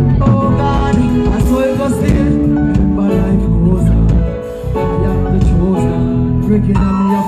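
Dancehall music with a singing voice over it, played live at a concert.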